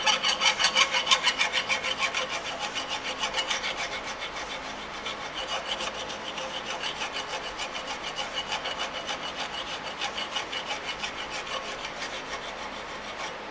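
Hand file rasping back and forth across a brass-brazed steel joint clamped in a bench vise, in quick even strokes of about three to four a second, a little louder at first. The filing clears scale and excess braze to expose the brass and bring the joint flat.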